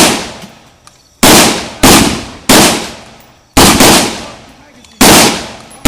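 Six rifle shots at an uneven pace, two of them in quick succession a little past halfway, each followed by a long echoing decay.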